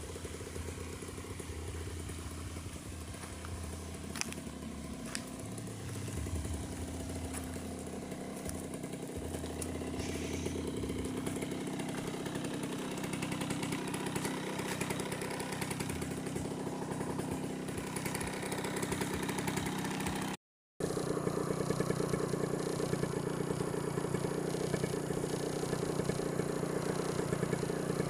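An engine running steadily, with a brief cut about two-thirds of the way through, after which it is a little louder.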